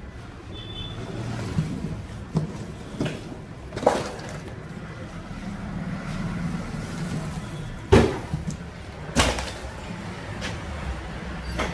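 A series of irregular sharp knocks, about seven, the loudest about eight seconds in, over a steady low hum.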